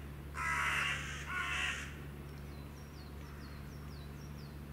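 A crow caws twice in quick succession, harsh calls, then a small bird gives a run of short, high chirps that each slide downward, over a steady low background hum.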